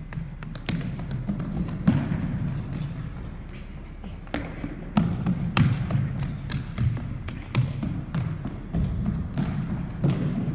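Running footsteps of sneakers on a hardwood gym floor during shuttle sprints: irregular thuds as the runners push off, stop and turn.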